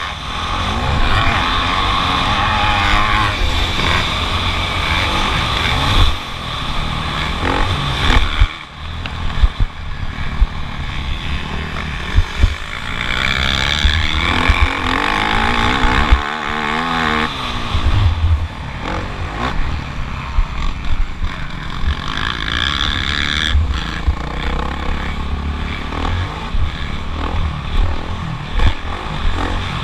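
Motocross bike engine heard from on board during a race, revving up and down as the rider accelerates and shuts off, with repeated sharp knocks over the track.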